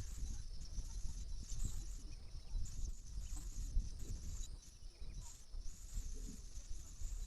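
Lakeside nature ambience: a steady low rumble with a constant high hiss and faint, scattered bird chirps.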